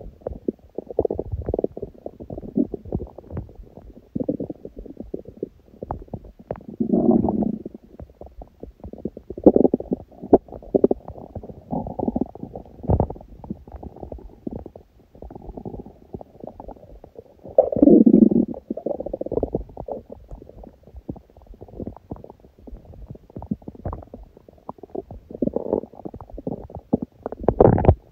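Empty stomach growling with hunger: a continual run of small gurgles, pops and rattles, with longer, louder low rumbles about seven seconds in and again around eighteen seconds.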